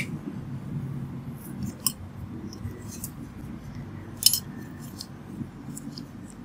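Scattered small sharp clicks and ticks over a steady low rumbling background, with one louder click about four seconds in.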